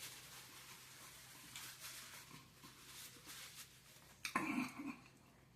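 Faint, irregular mouth sounds of a man chewing food, then a brief, louder throat sound, like a clearing or grunt, about four seconds in.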